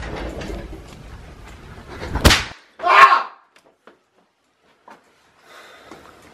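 A firecracker goes off with one sharp crack about two seconds in, followed at once by a short, loud yell.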